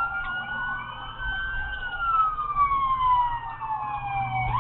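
Police car siren wailing: the pitch climbs slowly, then falls in a long sweep over about three seconds, and jumps quickly back up at the very end. A steady low vehicle drone runs underneath.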